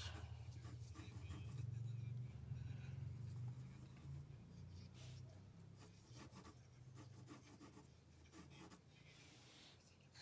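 Faint short strokes of a pencil scratching on paper while sketching lines, over a low steady hum.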